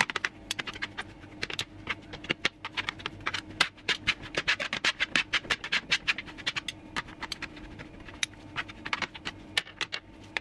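Metal spoons scraping and clicking against a metal sheet pan as seasoned raw chicken pieces and sliced peppers are pushed about and spread out: a rapid, irregular run of short clicks and scrapes.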